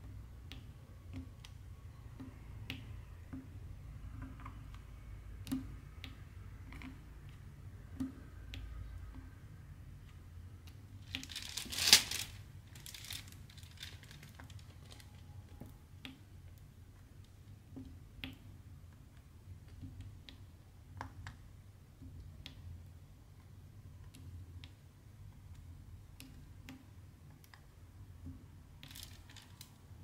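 Diamond painting pen picking up resin drills from a plastic tray and pressing them onto the canvas: scattered soft clicks and taps. About twelve seconds in there is a louder burst of plastic rustling and crinkling lasting about a second.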